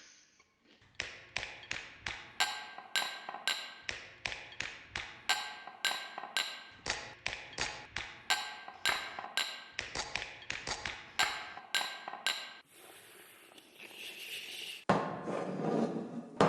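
Sharp, ringing taps in a steady rhythm: quick groups of about four, one group a little over a second after the next. Near the end the tapping stops, leaving a hiss, and then a louder, noisier sound starts.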